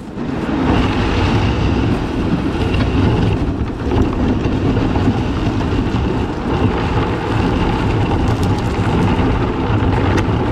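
Polycraft 300 Tuffy solid plastic boat hull being dragged over shingle on a rope: a loud, continuous scraping and rattling of pebbles under the hull, heard close to the hull.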